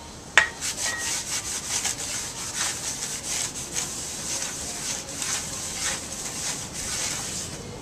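A rag wiping the face of a new brake rotor in repeated back-and-forth strokes, cleaning the anti-rust coating off with solvent. A sharp knock with a brief ring comes about half a second in.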